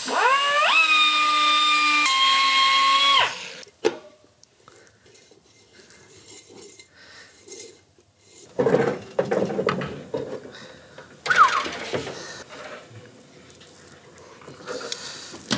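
Air die grinder with a carbide burr spinning up to a high whine, grinding for about three seconds with one drop in pitch partway through, then stopping. It is grinding down the spot on the brake where a brake-shoe rivet was rubbing. Quieter knocks and handling sounds follow.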